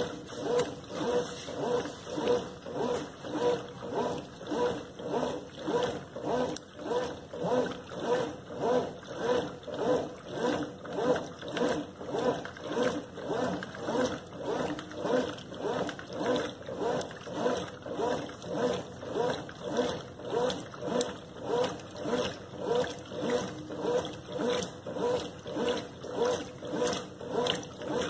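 Consul Maré CWL10 top-loading washing machine agitating a soapy load of cleaning cloths. The agitator swishes the water back and forth in a steady rhythm of about three strokes every two seconds, then stops right at the end.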